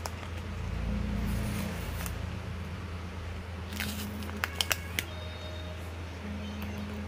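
A few light clicks and taps as the glass LCD panel of a scooter gauge is pulled apart and handled, with a quick cluster of three or four clicks a little past the middle, over a steady low hum.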